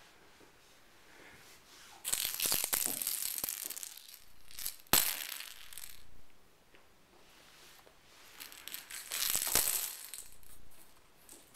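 Kittens scuffling over a feather toy: two stretches of rustling and scrabbling, with one sharp click about five seconds in.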